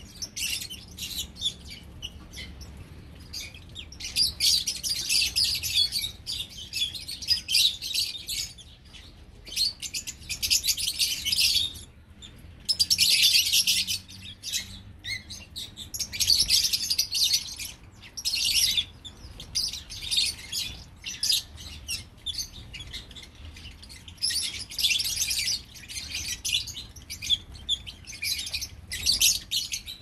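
A flock of lovebirds chattering with shrill, high chirps, in bursts of a second or two with short lulls between.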